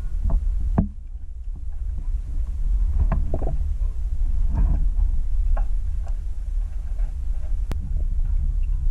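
Airboat engine running with a steady low rumble, with a few faint voices in the middle and a single sharp click near the end.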